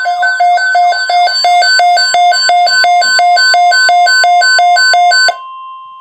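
A weather alert radio's alarm beeping rapidly, alternating between a low and a high pitch, which cuts off suddenly about five seconds in. Underneath it runs the steady NOAA Weather Radio alert tone, which is left sounding alone after the beeps stop.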